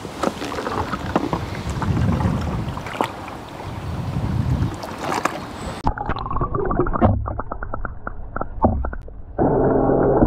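Water splashing and gurgling as a robotic pool cleaner is lowered into the pool. About six seconds in the sound turns muffled, heard from underwater, with the cleaner's motors giving a low steady hum, a run of clicks, and a louder stretch near the end.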